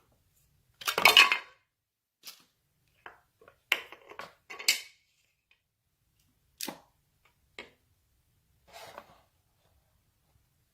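Irregular clicks and clattering knocks of small hard objects, about nine separate events with silence between, the loudest and longest a clatter about a second in.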